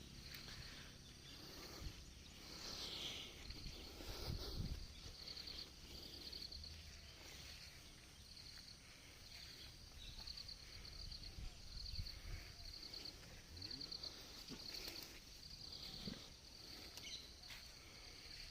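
Insects chirping in short, evenly repeated high-pitched pulses, with a few low thumps and rustles, the loudest about four seconds in.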